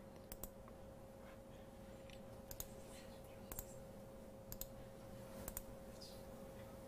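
Faint clicking on a laptop, mostly in quick pairs about once a second, over a faint steady hum.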